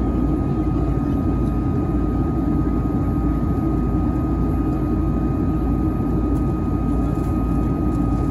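Steady cabin roar of a Boeing 757-300 on approach, heard from a window seat beside the engine: the rush of jet engine and airflow noise with a thin, steady whine above it.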